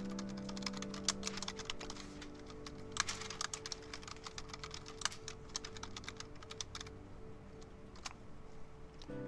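Typing on a computer keyboard: a fast run of key clicks that thins out to a few scattered keystrokes after about seven seconds, over soft background music.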